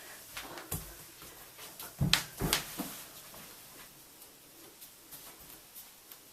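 Scattered knocks and thumps in a small room, with a louder cluster of impacts about two seconds in.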